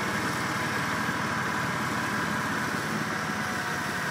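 Fertilizer spreader broadcasting ammonium sulfate on turf, running steadily: an even hiss over the low drone of the engine driving it.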